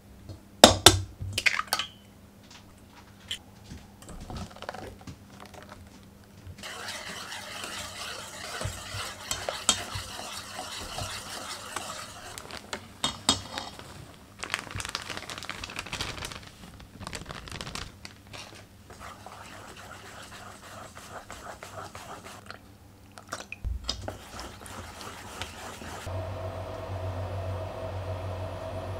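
A few sharp knocks of a kitchen knife on a wooden cutting board, then a wire whisk scraping and clinking around a stainless steel bowl as pancake batter is mixed. Near the end a steady hum sets in.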